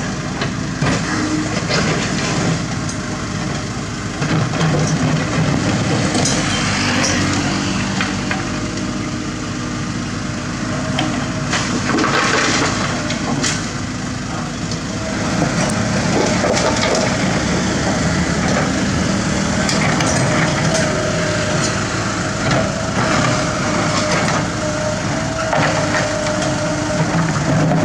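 Mini excavator's diesel engine working under load while its bucket digs into the road verge, with repeated crunching and scraping of soil and stones. A steady engine tone holds under it, joined about halfway through by a higher steady whine.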